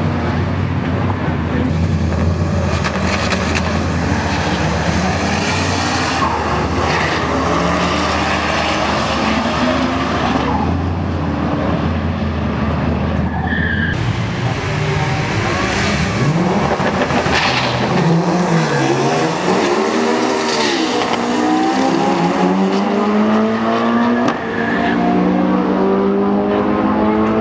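Drag-race cars running at full throttle down a drag strip, their engines loud and steady. After a cut about halfway through, engines rev at the line and the cars launch, the engine pitch climbing and dropping back again and again as they shift through the gears.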